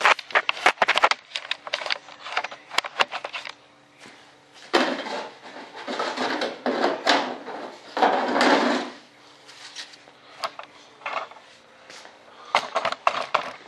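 Plastic intake duct pieces being handled and pushed into an RC jet's fuselage: a quick run of clattering knocks, then several longer rubbing scrapes as the duct slides against the airframe, then a few more knocks near the end.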